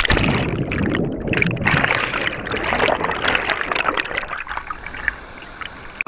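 A sudden splash into a pool, then churning, bubbling water heard underwater and up close, which dies down in the last second or so.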